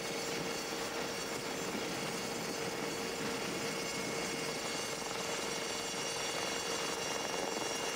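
Aircraft running steadily, heard from on board: an even rushing noise with a constant mid-pitched hum.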